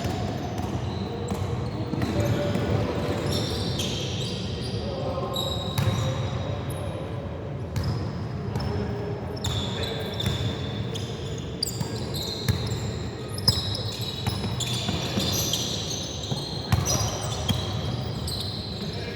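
Ball bouncing on an indoor court during a team game, repeated sharp knocks over a steady murmur of voices in a large hall.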